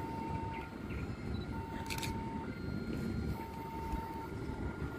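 Low, steady rumble of a CC 201 diesel-electric locomotive approaching in the distance. Over it, an electronic two-tone warning signal alternates between a lower and a higher pitch, each held about a second.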